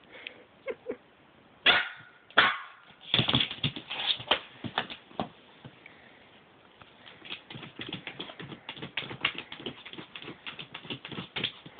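Shih tzu puppy playing with a plastic storage tub: two loud, short yips about two seconds in, then a long run of quick scratching and tapping from its paws and claws on the plastic.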